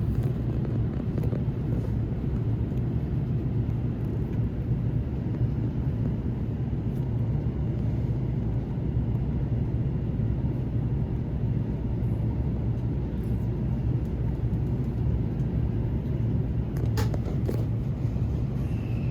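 Steady low rumble and hum inside a commuter train car held at a stop, its on-board equipment running. A few light clicks come near the end.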